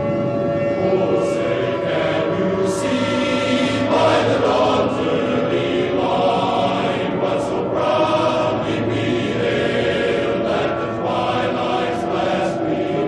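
Choral music: a choir singing slow, long-held chords.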